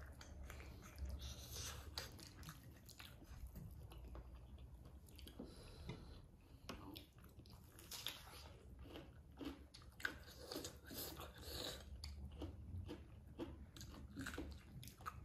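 Two people chewing pork curry and rice they eat with their hands, giving faint wet chewing and many short mouth smacks and clicks.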